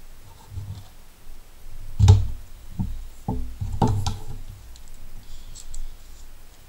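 Objects being handled on a tabletop as a kitchen scale is moved aside and a knife and a metal caliper are set down: a few knocks and clatters, the loudest about two seconds in, then lighter knocks over the next two seconds and a few soft clicks.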